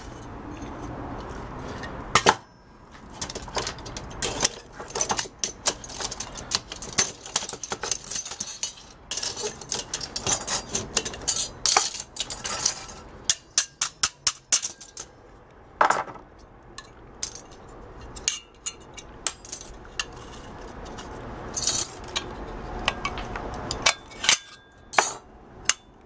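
Sheet-steel parts of a dismantled microwave magnetron clinking and knocking against each other and the workbench as they are handled: irregular sharp metal clicks, thickest in the first half.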